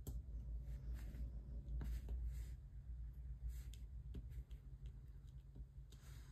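Faint scattered taps and clicks of a diamond painting drill pen picking resin drills from a plastic tray and pressing them onto the adhesive canvas, over a low steady hum.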